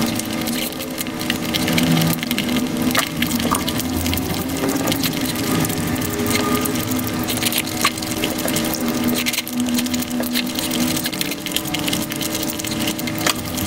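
Mukbang eating sounds of a person eating chicken biryani by hand, played at five times speed: chewing and mouth sounds run together into a dense, continuous wet crackle of clicks over a steady low hum.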